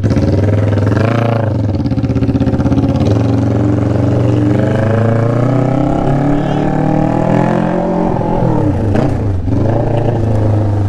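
Kawasaki Ninja 400 RR inline-four engine with an SC-Project aftermarket exhaust, revving. There is a quick blip about a second in, then a long steady climb in revs, a drop, and another short blip near the end.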